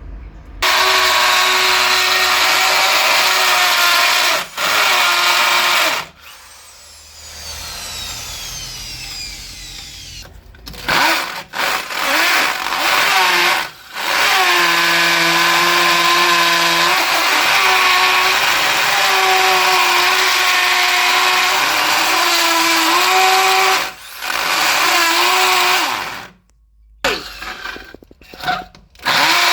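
Electric drill boring into concrete: the motor runs loud in long spells, its hum sagging in pitch and recovering as the bit loads up in the concrete. It stops briefly several times, with a quieter spell a few seconds in where the tool winds down.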